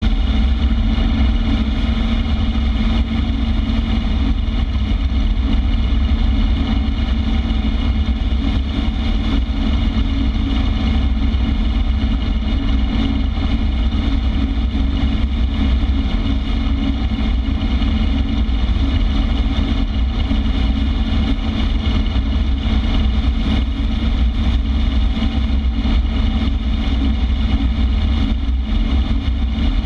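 Harley-Davidson Street Glide's V-twin engine running steadily at cruising speed, with wind and road noise from riding.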